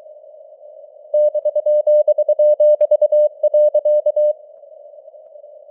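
Morse code (CW) sent at 23 words per minute as a single-pitched beep keyed in dots and dashes, over a narrow band of simulated radio hiss. The keying starts about a second in and stops about four seconds in, leaving only the hiss.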